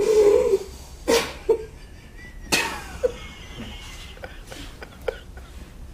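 A woman laughing helplessly in short breathy, wheezy bursts, opening with one loud voiced peal. It is a giggling fit brought on by an intravenous mixture of THC and cannabidiol.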